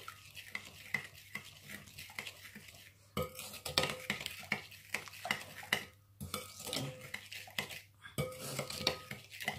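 A metal spoon stirs a thin liquid marinade in a glass bowl, with quick repeated clinks and scrapes of the spoon against the glass. The stirring gets louder about three seconds in.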